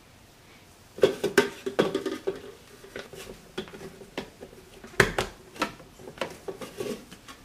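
Hollow plastic clunks and clicks as the water-filter holder is lowered into a Keurig brewer's empty plastic water reservoir and the reservoir is handled. They start about a second in and come irregularly, with one sharper knock about five seconds in.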